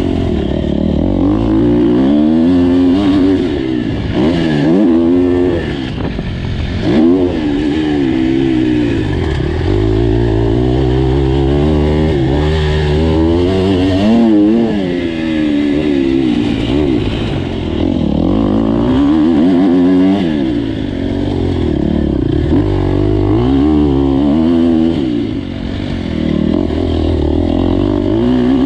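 Husqvarna FC250 motocross bike's 250 cc single-cylinder four-stroke engine under hard riding, its pitch rising and falling again and again as the throttle is opened, shifted and rolled off.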